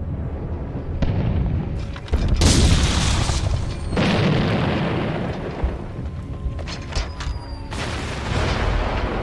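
Three heavy booms of distant explosions, at about two, four and eight seconds in, each dying away slowly, over a low music drone.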